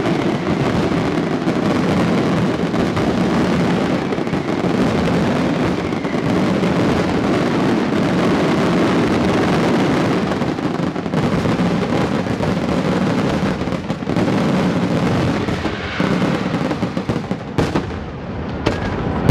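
Fireworks barrage: aerial shells bursting one over another in a dense, continuous stream of bangs and crackle, thinning near the end to a few separate sharp reports.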